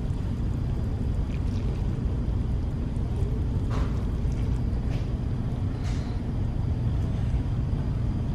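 Steady low road rumble of a car driving, heard from inside the cabin, with a few faint ticks.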